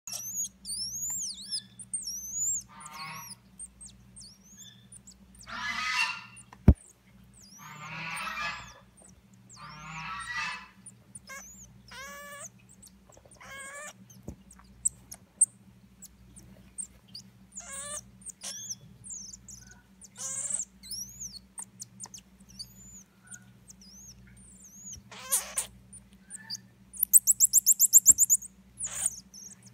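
Common marmosets calling with short, high-pitched chirps and twitters scattered throughout, and a rapid high trill near the end. A steady low electrical hum runs underneath.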